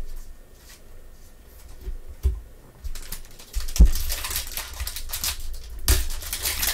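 A few light taps of cards being handled and set down, then from about three seconds in the steady crinkle and rip of a foil trading-card pack wrapper being torn open.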